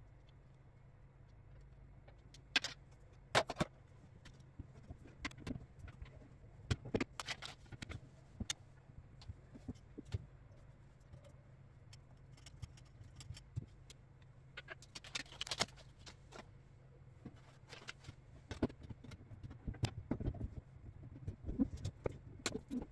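Scattered clicks, knocks and light clatter from an under-sink organizer being taken apart by hand, its rod pulled off and the frame fitted into the cabinet, over a low steady hum.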